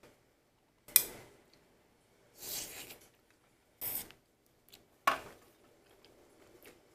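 Stainless steel camping cups knocking sharply onto a table twice, about a second in and again about five seconds in, each with a brief metallic ring. Between the knocks come two short rustling noises from handling the tableware.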